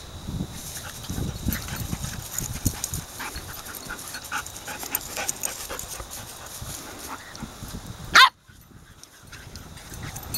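Labrador retrievers at play: panting and short uneven scuffling sounds. About eight seconds in there is one very loud, sharp sound, after which the sound briefly drops almost to nothing.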